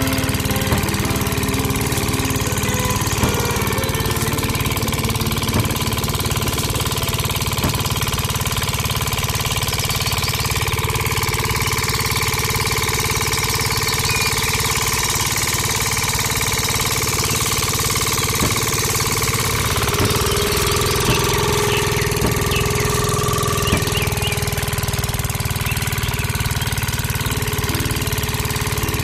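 An engine running steadily at idle with a fast, even beat, with a few light taps over it.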